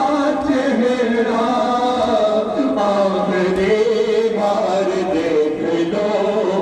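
Male voices chanting a noha, the Muharram lament, as a held, wavering melodic recitation amplified through loudspeakers.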